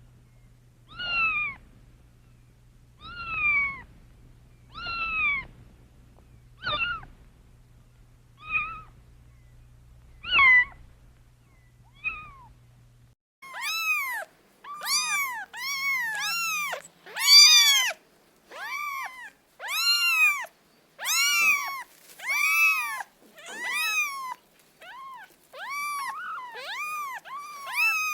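Domestic cats meowing repeatedly, each meow a short rise-and-fall cry. In the first half the meows come every second or two over a faint steady low hum. About halfway through, a different recording cuts in with quicker, nearly back-to-back meows.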